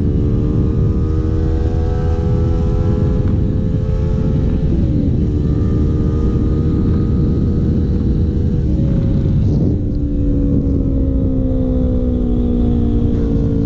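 Sport motorcycle engine running at road speed, heard from the rider's seat with heavy wind rumble on the microphone. The engine note dips briefly about five seconds in, changes again around nine to ten seconds in, then slowly falls toward the end as the bike eases off.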